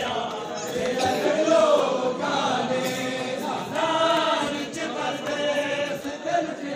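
A large crowd of men chanting a mourning lament (nauha) together, many voices singing in unison.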